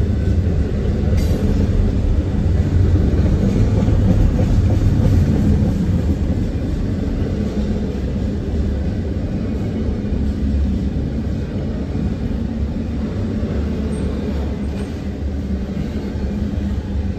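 Norfolk Southern double-stack container train rolling past: a steady rumble of steel wheels on rail from the passing well cars.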